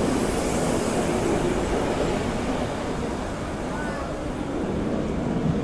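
Yellow Berlin U-Bahn train running past close by and pulling out of the station, a steady rumble that eases off a little about halfway through.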